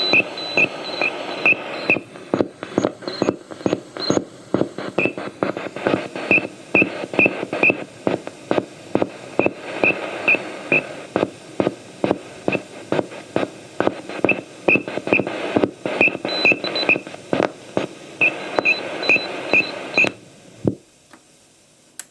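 Morse code received on a shortwave radio: runs of short, high-pitched beeps over hissing static, with a rapid regular train of clicks underneath. The signal cuts off about twenty seconds in.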